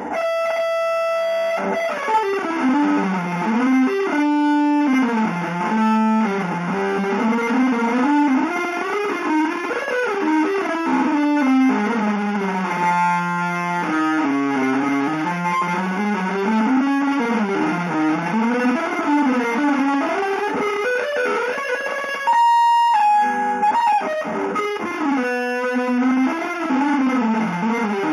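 Electric guitar music played through effects in a free, non-melodic style, with lines that keep sliding up and down in pitch. A single high note is held for about a second about three-quarters of the way through.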